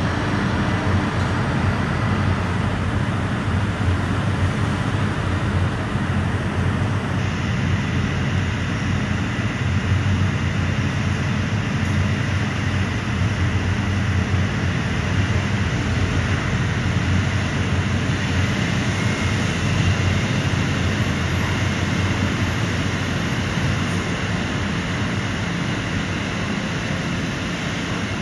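Steady low rumble of city street traffic, with no distinct events.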